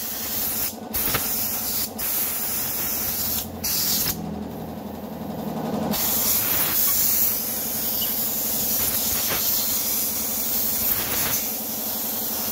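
Compressed air hissing from a hand-held air blow gun as it blasts iron dust out of an electric-bike hub motor's magnet ring. The blast stops briefly several times, with a longer pause about four seconds in. An air compressor runs with a steady hum underneath.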